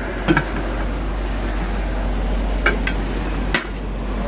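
Steady road traffic noise with a low rumble, broken by a few sharp knocks.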